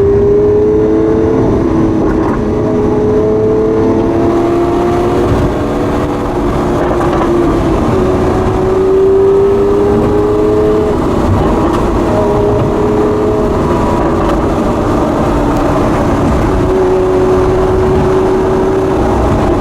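Lamborghini Aventador S's V12 engine with the stock exhaust, heard from inside the car while driving: a steady engine note whose pitch creeps up slightly and resets every few seconds, over a constant low road rumble.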